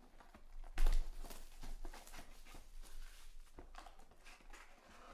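A shrink-wrapped cardboard box of trading cards being handled, with a knock about a second in. Then a run of crackling and rustling as fingers pick at the plastic wrap to tear it open.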